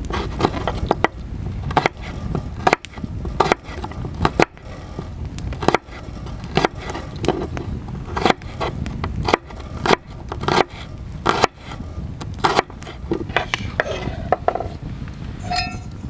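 Opinel folding knife chopping a garlic clove on a wooden cutting board: sharp knocks of the blade against the board, irregular, about one or two a second, over a steady low rumble. Near the end a short metallic ring.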